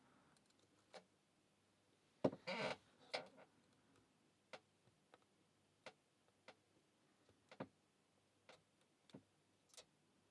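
Faint, sparse clicks of a lock pick and tension tool working the pins of a small aluminium padlock, with a short scraping burst about two and a half seconds in.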